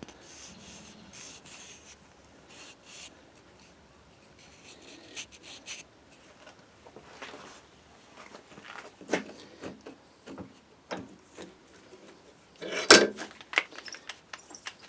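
Irregular handling noises of wood and tools: rubbing, scraping and light clicks, with a few sharper knocks and a louder clatter near the end.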